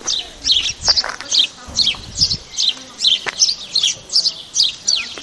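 Small birds chirping rapidly and continuously, short high falling chirps several a second, with a few sharp clicks among them.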